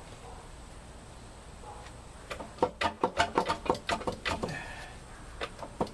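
A rapid run of sharp metallic knocks, about six a second, starting about two seconds in and lasting about two seconds, followed by a few single knocks near the end.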